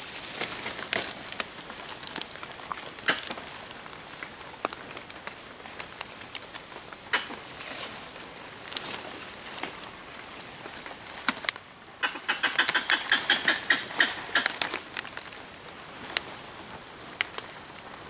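Footsteps and brushing through dry leaf litter and twigs on the forest floor, scattered crackles and snaps, with a denser spell of rapid crackling about two-thirds of the way through.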